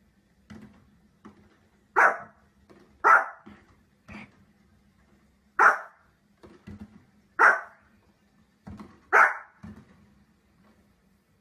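Dog barking in short, sharp barks: five loud ones spaced one to two seconds apart, with fainter barks between.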